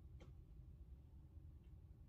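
Near silence: a steady low ambient rumble, with one faint short high chirp a fraction of a second in and a fainter one past the middle.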